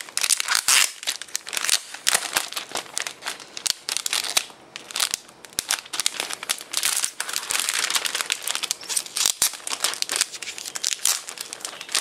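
Clear plastic wrapping film crinkling and crackling as it is peeled off an aluminium wireless keyboard, a dense run of crackles that eases off briefly around the middle.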